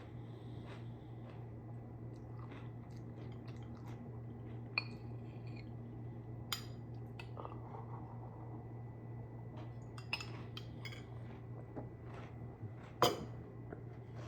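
A spoon clinking against a cereal bowl every few seconds, with quiet chewing in between, over a steady low hum. The loudest clink comes near the end.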